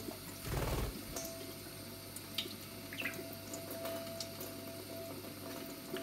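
Thin stream of water from a kitchen tap running onto cupped hands and splashing into a stainless steel sink, with a short bump about half a second in.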